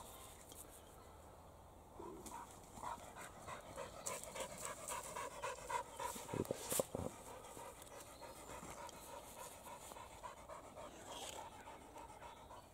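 A dog panting in a quick, steady rhythm, with a couple of short, louder sounds about six and a half seconds in.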